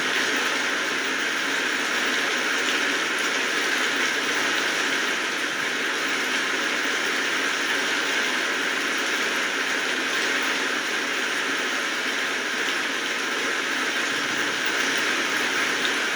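Steady rain falling: an even, unbroken hiss of many drops, with no thunder or single drop standing out.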